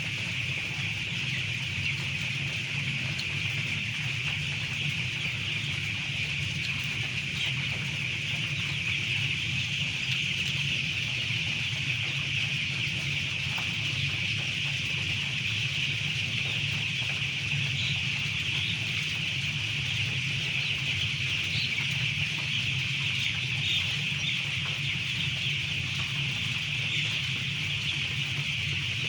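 A large flock of chickens, a dense unbroken chorus of chirping and clucking from many birds at once, over a steady low hum.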